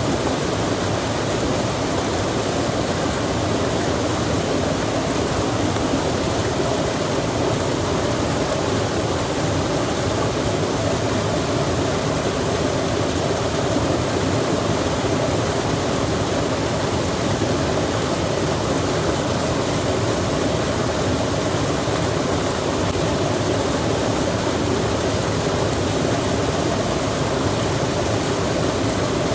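Steady, unbroken rushing noise of mountain-forest ambience, even throughout with no distinct events.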